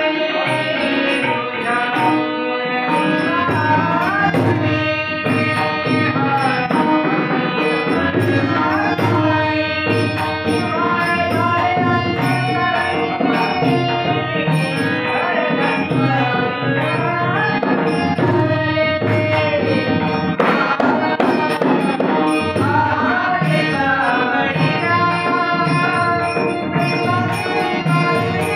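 Marathi gaulan devotional song: male voices singing to harmonium, with tabla and a pakhawaj barrel drum playing a steady rhythm and small hand cymbals ticking in time.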